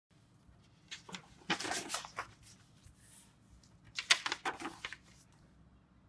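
Square origami paper being folded and unfolded along its diagonals by hand: a crisp crackling rustle in two bursts, about a second in and again about four seconds in.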